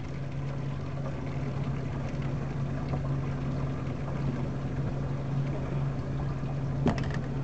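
Boat motor running steadily at low speed, a constant low hum over the wash of water. A single sharp knock near the end.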